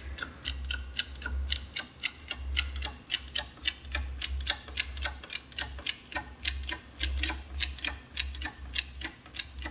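6-ton hydraulic bottle jack being pumped by its handle, with a run of sharp metallic clicks, about four a second, and a low thud about once a second with each stroke, as it lifts an aircraft's main landing gear wheel under load.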